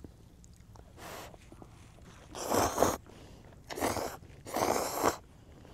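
Ramen noodles being slurped from a bowl: a faint slurp about a second in, then three loud ones in the second half, the last two close together.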